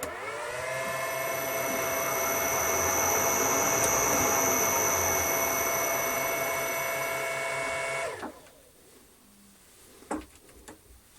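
Metal lathe motor starting up, rising to speed within about a second, running steadily for several seconds, then switched off and spinning down quickly.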